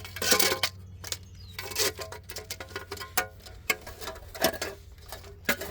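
Irregular light clicks, knocks and rustling as a new wheel hub assembly is handled and its coiled sensor wire is fed through the steering knuckle, over a steady low hum.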